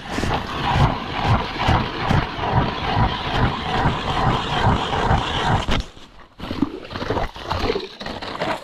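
Ice auger drilling a hole through lake ice: a loud, steady scraping with a low pulse about three times a second, stopping about six seconds in.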